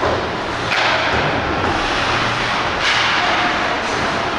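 Ice hockey play on the rink: several sudden hits, each followed by a scraping hiss that fades off, at uneven intervals.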